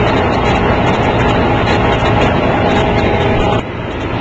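Steady hum of a flow test rig running: a pump driving water through the flow gauge at a set flow rate. Near the end a steady tone over the hum drops out and the level dips slightly.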